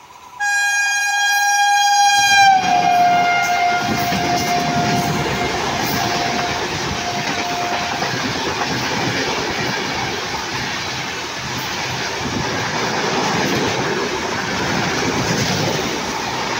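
An express train passing close on the next track: its locomotive horn sounds one long blast about half a second in, drops in pitch as the locomotive goes by, and fades out. It is followed by the loud rush and clickety-clack of the coaches' wheels running past.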